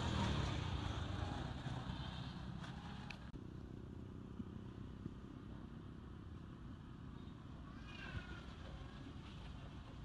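A motor vehicle passing on the road, loud at first and fading away over the first couple of seconds. Then a low steady background rumble with a few short high calls from macaques, about three seconds in and again near the end.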